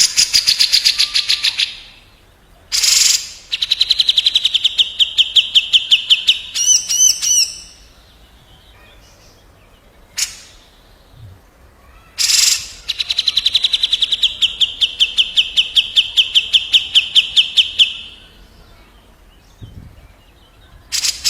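Cucak jenggot (grey-cheeked bulbul) and another songbird trading fast rolling rattle trills of about six notes a second, in three long runs of several seconds each. A brief higher wavering phrase comes about seven seconds in, and a few sharp clicks fall between the runs.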